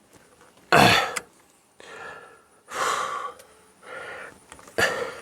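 A man's strained breathing while he works: a loud gasping grunt about a second in, followed by a few softer heavy exhales.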